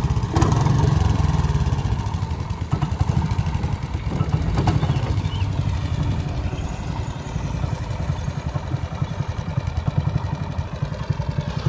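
Small boat engine running steadily, a fast, even low chugging, as the narrow boat moves through the water.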